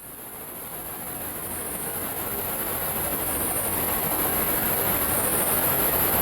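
Cinematic wind swell sound effect: a rushing wind noise with a strong high hiss, swelling steadily louder to its peak near the end.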